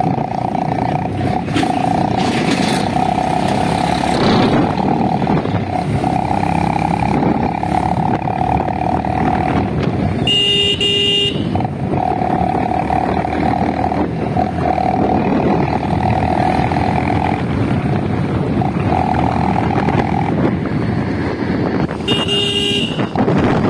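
Motorcycle running at road speed with wind rushing over the rider's helmet. A horn sounds twice, each blast about a second long, about ten seconds in and near the end.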